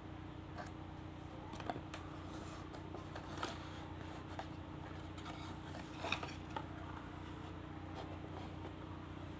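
Cardboard and plastic being handled: light scrapes, rustles and a few sharp taps as a clear plastic display case is slid out of a cardboard box, over a steady low hum.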